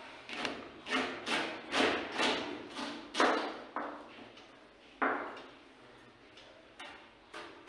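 Chef's knife chopping through cabbage onto a plastic cutting board: a run of knocks about two a second, then a few more spaced out.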